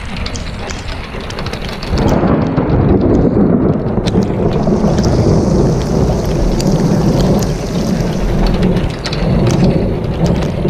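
Steady rain with scattered sharp drops; about two seconds in a loud, deep rumble of thunder comes in and continues, easing near the end.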